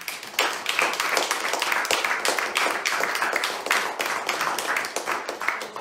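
Applause from a small seated audience: many hands clapping densely, starting suddenly and fading out near the end.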